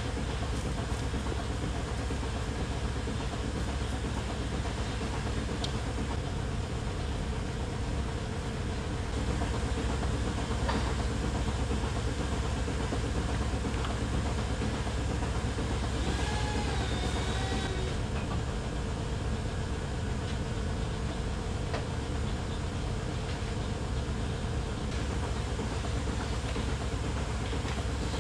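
Milking-parlour machinery running steadily: the vacuum system and pulsing milking units of a dairy parlour, a constant hum and hiss. A brief wavering high-pitched sound rises over it a little past halfway.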